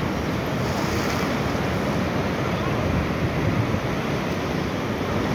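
Strong ocean surf breaking and washing over a flat rock shelf, a steady rush of water, with wind buffeting the microphone.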